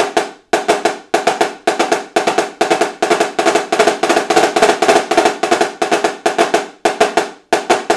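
Marching snare drum played with sticks: the blue cheese hybrid rudiment, repeated flam-and-double groups in a fast, even stream of strokes, each ringing briefly at the drum's tight pitch. The stream thins to a few single strokes near the end.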